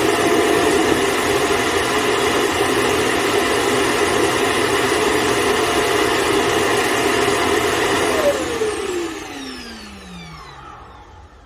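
iNic i9 robot vacuum's clean station (auto-empty dock) running its suction motor to empty the robot's dust bin: a loud, steady rush with a held whine. About eight seconds in the motor shuts off and spins down with a falling whine, which signals that bin emptying is complete.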